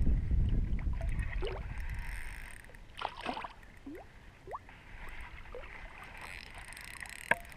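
Small bream being reeled in to the boat on a spinning reel: a low rumble of reel and rod handling for the first couple of seconds, then quieter lapping water with a few short rising chirps and one sharp click near the end.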